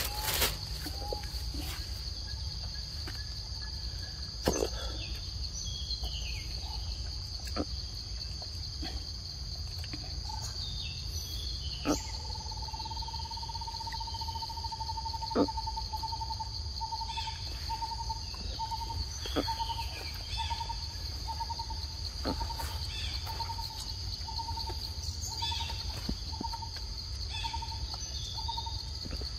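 Forest background of insects droning steadily at a high pitch, with bird calls. From about twelve seconds in a short note repeats a little more than once a second, and a few sharp clicks stand out.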